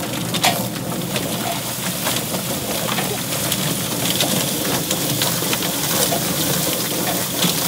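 Drum-style chicken plucker running, a scalded chicken tumbling against its rubber fingers with constant knocking and slapping as the feathers are stripped. Water from a hose sprays into the spinning drum.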